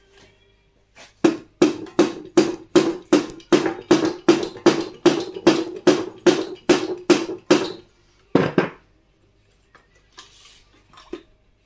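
A quick, even run of about seventeen hammer blows, close to three a second, each with a short ring, on the cast sump of a Briggs & Stratton Vanguard 16 hp V-twin engine to knock it free of the crankcase. This is followed by one heavier, duller blow and a few faint knocks.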